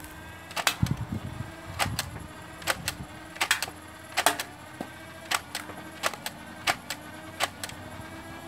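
Adventure Force Double Trouble, a battery-powered flywheel foam-dart blaster, firing semi-automatically: about a dozen sharp clicks, one for each dart and some in quick pairs. Under them runs the steady hum of its spinning motors.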